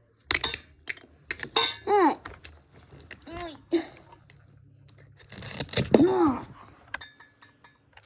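Toy knife cutting a play-food tomato: a run of plastic knocks, taps and clatters. Three short squeaky tones rise and fall in pitch, about two, three and a half and six seconds in.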